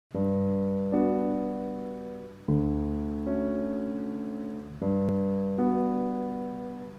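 Slow solo piano background music: sustained chords struck about every two and a half seconds, each fading out before the next, with a further note added about a second into each.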